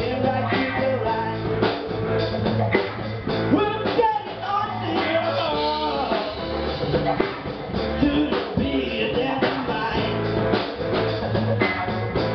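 Live band playing a blues-funk song: a drum kit keeping a steady beat under guitar, with a singer's voice over the top.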